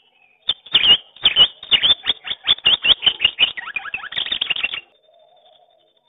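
Palm squirrel giving a loud chirping call: a fast, even run of about twenty sharp chirps, about five a second, for some four seconds, then stopping abruptly.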